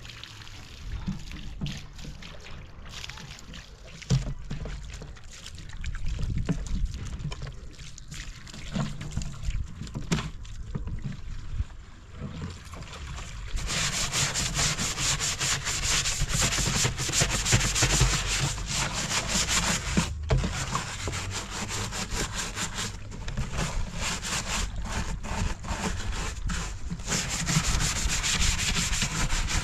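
Continuous rough rubbing and scraping, like hand work on a hard surface, that gets louder and harsher about halfway through, over a low rumble.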